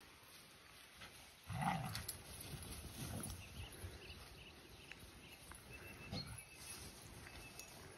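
Dogs playing: one gives a short, low vocal sound about one and a half seconds in, with fainter ones around three and six seconds.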